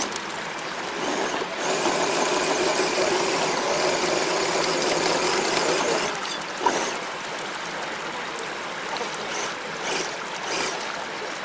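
Electric motor and gears of a Tamiya CC-01 radio-controlled crawler whining as it climbs over wet rocks, over the rush of a flowing stream. The whine eases off about six seconds in, followed by a single sharp knock.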